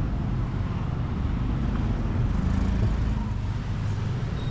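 Street traffic: a steady low rumble of vehicle engines passing on a city road.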